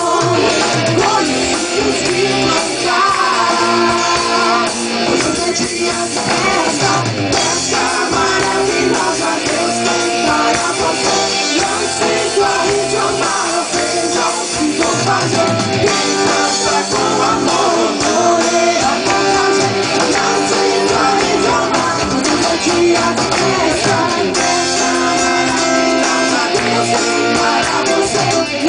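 Music with singing and guitar at a steady, loud level.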